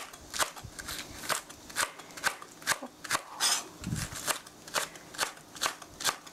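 Chef's knife slicing a halved Korean green onion (daepa) on a cutting board. The blade taps the board in an even rhythm of about two cuts a second, with one duller thump about four seconds in.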